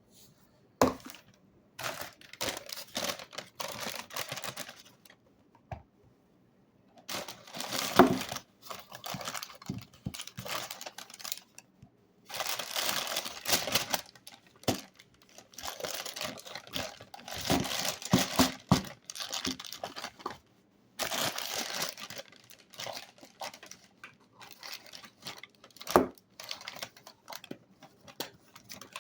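Hands working slime: repeated bursts of crackling and popping as it is squeezed and stretched, with a few sharp snaps.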